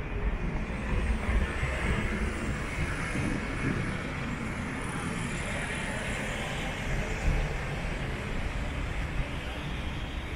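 Street traffic: steady engine rumble and tyre noise, with a vehicle passing close by in the first half, its hiss swelling and then fading.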